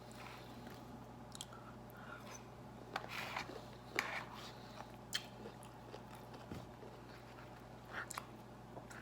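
A person chewing and biting food close to the microphone, a meal of shrimp, broccoli and white rice, with scattered short mouth smacks and crunches, the strongest about three and four seconds in.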